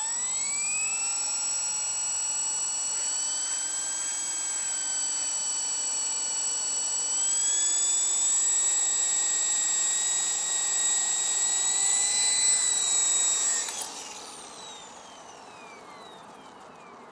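Esky King 3 RC helicopter's electric motor and rotor spinning up with a rising whine, then running at a steady high pitch that steps up about seven seconds in. Near the end the motor cuts with a click and the rotor winds down with a falling whine.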